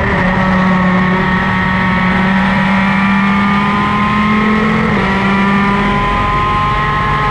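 Superkart's two-stroke engine running hard under acceleration, heard from on board, its pitch climbing slowly, then dipping briefly about five seconds in before climbing again.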